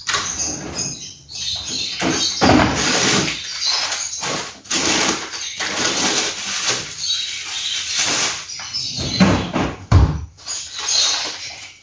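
Fridge freezer drawer being slid open and shut while things are taken out of it: a run of noisy scrapes and rustles with a few knocks, the heaviest about ten seconds in.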